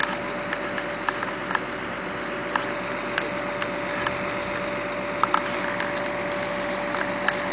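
Truck-mounted crane running steadily while lifting a house section: an even engine hum with a constant whine through it. Scattered light clicks and knocks come and go, two close together a little past halfway.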